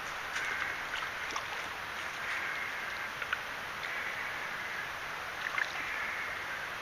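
Water sloshing, with short light splashes, as a landing net is worked around a large hooked carp in the shallows, over a steady hiss.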